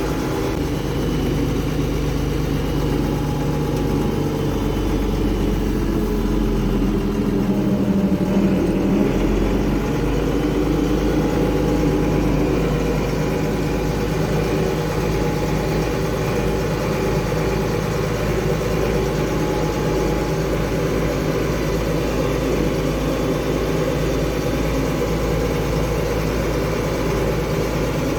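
Farm tractor engine running steadily in high gear while towing a baler. Its note shifts a few seconds in, then holds even.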